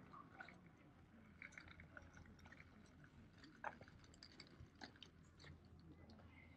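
Near silence with faint, scattered small clicks and ticks.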